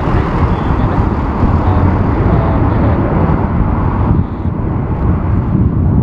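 Boeing 747-400 freighter's jet engines running loud as the jumbo jet rolls along the runway. It is a steady, low, broad noise that dips briefly about four seconds in.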